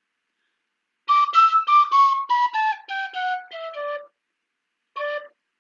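A flute plays a short tune of about a dozen quick notes that rise briefly and then step down about an octave. One more low note follows about a second later.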